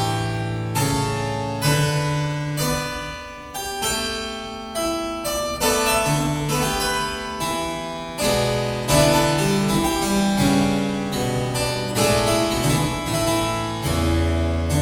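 Solo harpsichord playing a contemporary piece: plucked chords and runs with bright, ringing overtones over low held bass notes, growing quieter around three seconds in and then louder again.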